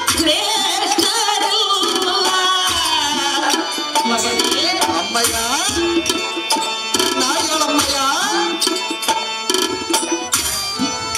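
Indian music with tabla drumming under a melody that glides up and down, over steady held tones.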